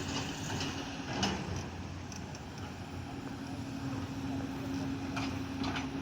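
Engine running steadily at a constant pitch, with a few short knocks about a second in and twice near the end.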